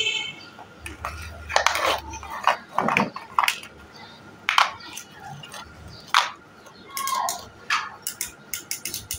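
Large plastic building blocks clicking and clattering as they are handled, pressed onto one another and set down on a hard floor, in irregular knocks.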